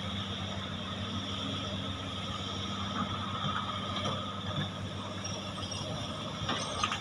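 Several hydraulic excavators working at once: a steady diesel engine hum with a high whine over it, and a few faint clanks as buckets dig and tracks move.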